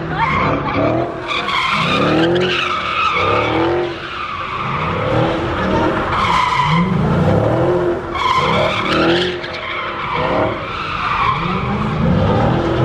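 Muscle car doing donuts: the engine revs up and drops again over and over, about every two seconds, while the rear tyres screech continuously in a burnout.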